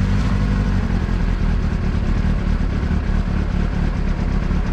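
Sportbike engine idling just after a cold start, warming up. The sound is steady at first and turns rougher and less even about a second in.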